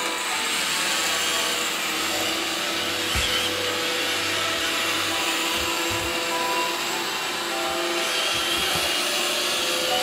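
iRobot Roomba 570 robot vacuum cleaning carpet: the steady whir of its vacuum motor and spinning brushes as it drives across the floor, with a few steady tones humming through the noise.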